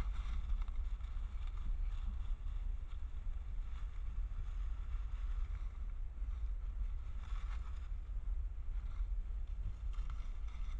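Steady low rumble of wind on a trail camera's microphone, with faint rustling now and then from wild boars rooting through dry leaf litter.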